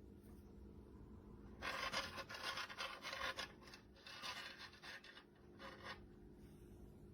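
Faint rubbing, scraping noise in two stretches of about two seconds each, over a low steady hum.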